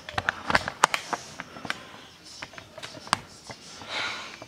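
Handling noise: a quick run of sharp clicks and taps in the first second or so, one louder tap about three seconds in, and a short hiss near the end.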